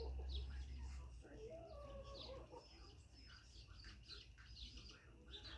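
Chickens clucking faintly, with many short high-pitched chirps throughout. A low hum fades about a second in.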